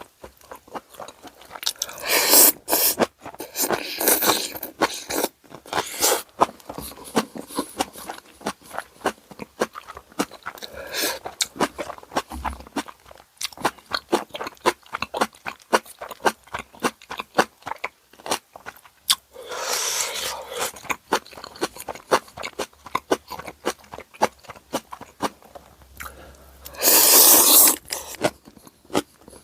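Close-miked eating of tonkotsu ramen and karaage: crunchy chewing with many small clicks, broken by several louder bursts of one to two seconds, the longest near the end.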